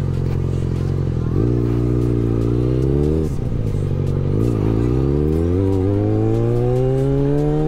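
Yamaha XJ6 four-cylinder motorcycle engine with a straight-pipe exhaust, running steadily for over a second and then revving up. The revs drop sharply about three seconds in, dip again a little later, and then climb steadily under acceleration.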